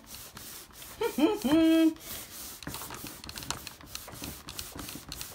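Clothes iron sliding and pressing over paper on a towel, giving a run of light, irregular clicks and rubs. A short wordless hum from a woman's voice comes about a second in.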